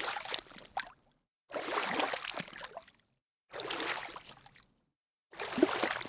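Water splashing in four separate bursts, each about a second long and separated by silence, with a little bubbling inside each splash.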